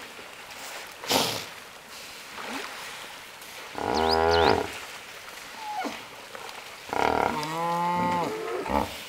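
Hippos in a crowded pool trumpeting: a short burst about a second in, a deep call with many overtones about four seconds in, and a longer call that bends in pitch from about seven seconds in.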